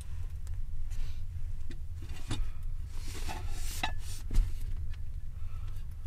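A frying pan being handled and set on a stove: scattered knocks and scrapes, with a couple of short ringing metal clinks about halfway through, over a steady low rumble.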